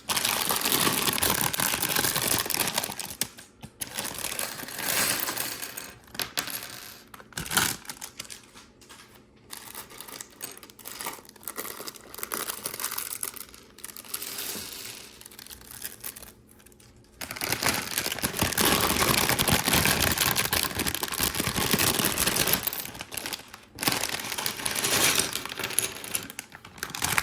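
Plastic LEGO parts bags crinkling as they are torn open, and many small LEGO Technic pieces clattering as they spill out onto a hard surface.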